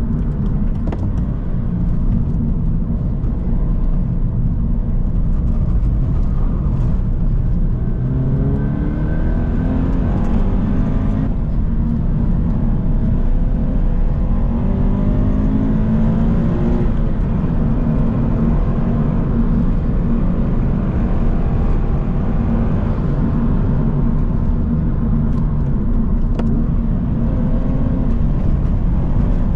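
Subaru BRZ's 2.0-litre flat-four engine and tyre and road noise heard from inside the cabin while driving hard on a narrow road. The engine note rises in pitch under acceleration twice, about a third and about halfway through, over a steady low drone.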